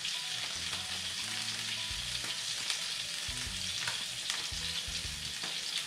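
Steady sizzle of fish frying in oil in a pan, with a few faint taps of a spice packet being emptied into a bowl.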